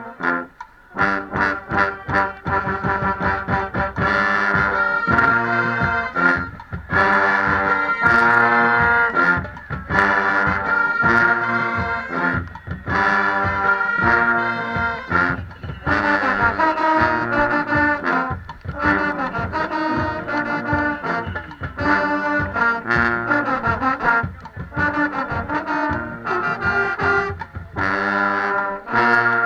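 Marching band playing a stand tune: loud brass, trombones among them, in short, punchy rhythmic phrases with brief breaks between them, heard from inside the low brass section.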